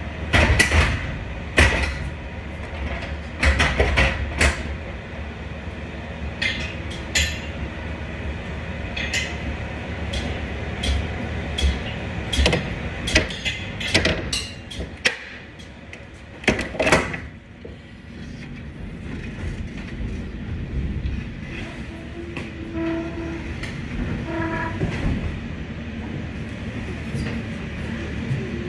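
Manual pallet jack being worked with a loaded pallet inside a semi-trailer. Over roughly the first 17 seconds come a string of sharp metal clanks and bangs. After that comes a quieter, steadier rumble as the jack rolls over the trailer floor.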